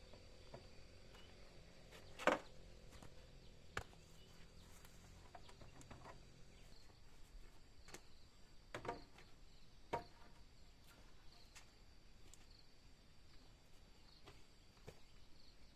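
Quiet outdoor ambience with a faint steady high whine and a few scattered sharp knocks from woodwork, the loudest about two seconds in and others near the middle.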